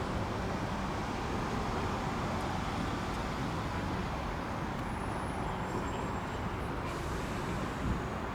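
Steady road traffic passing, a continuous rush of tyres and engines.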